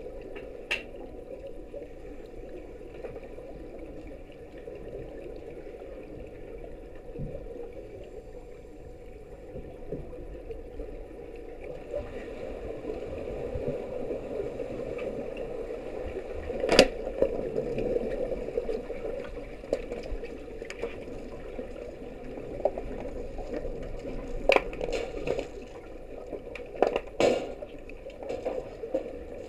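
Underwater pool noise picked up through a waterproofed action camera on the pool floor: a steady muffled rumble of swimmers moving through the water, broken by a few sharp clicks, the loudest about 17 seconds in and others near 24 and 27 seconds.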